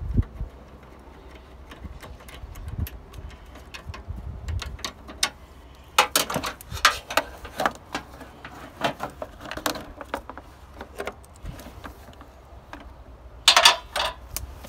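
Plastic headlight assembly of a 2007 Ford Fusion and hand tools clicking and rattling as the last screw is taken out and the headlight is worked free. Clusters of clicks come about six and nine seconds in, with a louder clatter near the end.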